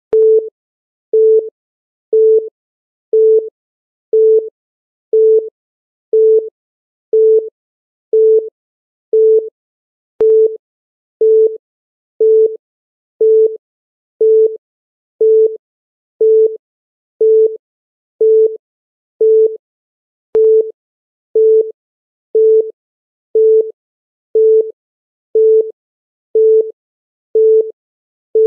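Electronic countdown-timer beep: a short, steady mid-pitched tone repeating evenly once a second, marking off each second of the countdown.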